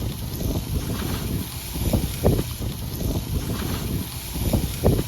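Wind buffeting the microphone outdoors: a steady low rumble over a faint hiss, with stronger gusts twice.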